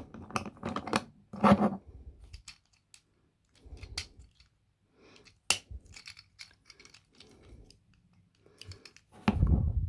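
Plastic Transformers Cyberworld Optimus Prime figure being handled and transformed: scattered clicks, scrapes and knocks of its plastic parts being folded, with one sharp click about five and a half seconds in and a heavier knock near the end.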